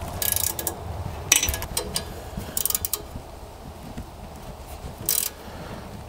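Small ratchet with a T25 Torx bit clicking in four short bursts as it tightens the screw on the choke cable clamp, locking the readjusted choke cable in place.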